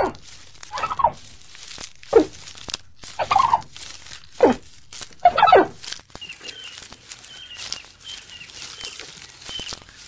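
A series of animal calls, about one a second, each falling in pitch, for about six seconds, followed by faint, short, high-pitched chirps repeating at a steady pace.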